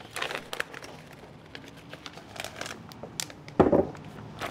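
Plastic vacuum-sealer bag crinkling as it is handled with sliced meat and marinade inside, with a dull thump about three and a half seconds in.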